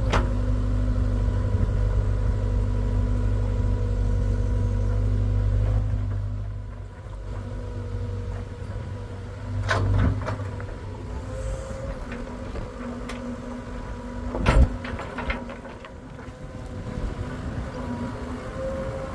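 Hitachi excavator's diesel engine running with a steady hum, heavy and rumbling for about the first six seconds before easing off. Sharp knocks at the start, about ten seconds in and, loudest of all, about fourteen and a half seconds in.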